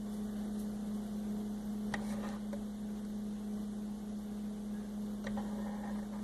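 Steady electrical hum, with a few faint clicks of small plastic toy figures being set into a plastic toy fridge, about two seconds in and again near the end.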